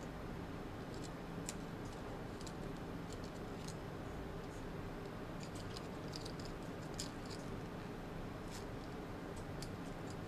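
Hands squeezing and handling a soft foam ice-cream-cone squishy toy: faint, scattered little clicks and crackles that come thickest around the middle, over a steady low background hum.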